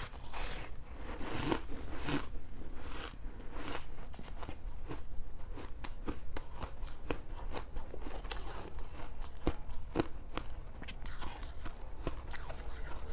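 A person biting into and crunching freezer frost with their teeth: an irregular run of crisp crunches and cracks.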